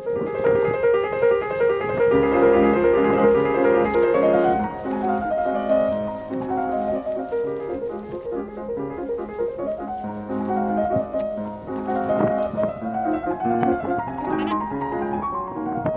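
Background piano music, a flowing melody with running notes over chords.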